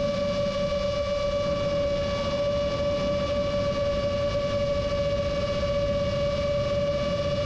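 FPV quadcopter's motors and propellers whining at a steady cruising throttle, one held pitch with a row of overtones, over a rough rumble of wind and prop wash.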